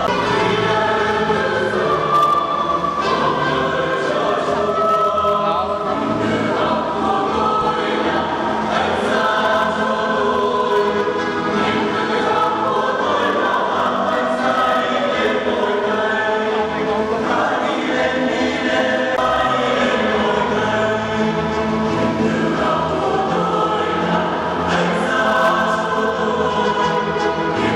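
Church choir singing a hymn, many voices together without a break.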